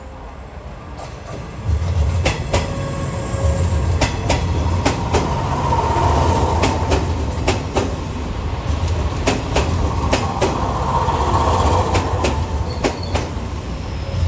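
381 series limited express electric train in Super Yakumo livery running past close by, with a steady low rumble that comes up sharply about two seconds in. Sharp wheel clicks over the rail joints and points come at irregular intervals, and a faint whine swells twice.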